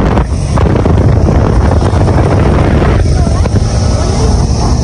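Wind buffeting a phone microphone on a moving motorbike, a loud low rumble with the road and motorbike noise under it.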